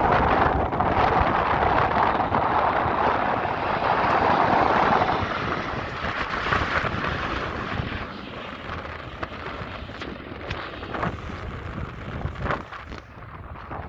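BAE Systems Hawk jets passing: a loud jet roar for the first five seconds or so that then fades away as they fly off, with wind buffeting the microphone.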